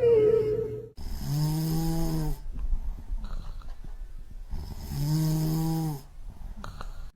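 Cat snoring: two long, rasping snores about three and a half seconds apart, with quieter breathing between them. A short sound falling in pitch comes in the first second.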